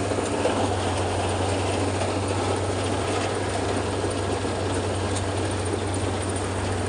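Rice combine harvester running steadily: a constant low engine hum under a dense, even mechanical noise.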